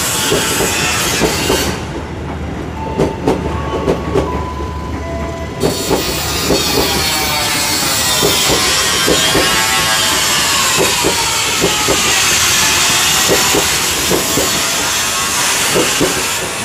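Economy-class passenger train coaches rolling past, wheels clacking over rail joints over a steady rushing hiss, with a faint whine falling in pitch midway. The sound drops off near the end as the last coach clears.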